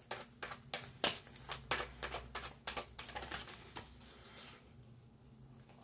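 Tarot deck being shuffled by hand: a quick, irregular run of card flicks and clicks that dies away about four and a half seconds in.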